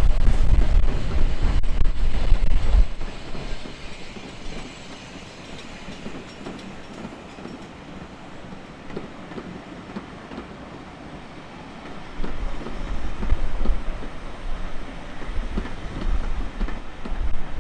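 Train running past, its wheels clattering over the rail joints. Heavy wind buffets the microphone for the first few seconds and again from about twelve seconds in.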